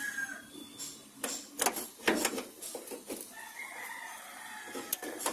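A rooster crowing in the background, once near the start and again about four seconds in, over scattered sharp clicks and knocks of a socket wrench working a rusted bolt that may be seized.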